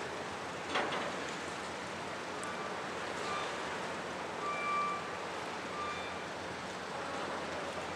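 Steady rushing noise of water and wind around a large motor yacht under way, its wake washing along the hull. A single short knock sounds about a second in, and a few brief high tones come a few seconds later.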